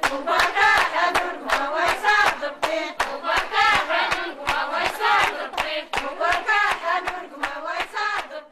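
A group of women singing together, accompanied by a steady rhythm of hand claps.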